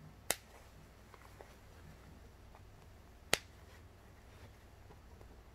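Two sharp clicks about three seconds apart, snap fasteners on a baby carrier's fabric hood being worked by hand.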